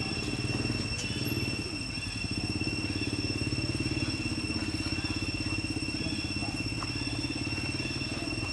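An engine idling steadily with a fast, even pulse, with a steady high whine above it.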